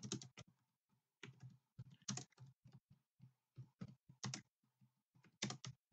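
Computer keyboard typing: faint, irregular runs of keystrokes with short pauses between them.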